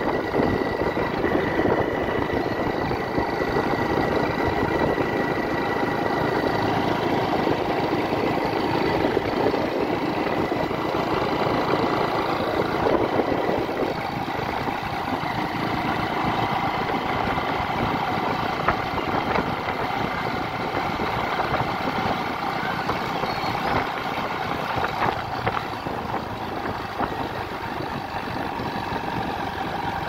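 Motorcycle engine running steadily while riding along a road. The lower part of the sound drops back about halfway through.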